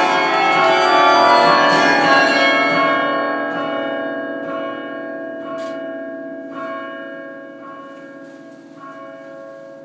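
Carillon bells ringing a final loud chord that is left to sound, its many bell tones slowly dying away. A faint light strike recurs about once a second as the ringing fades.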